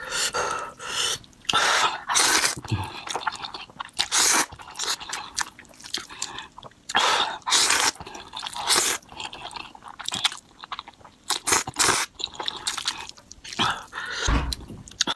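Close-miked chewing and biting of noodles and fried egg, a run of short, irregular mouth noises.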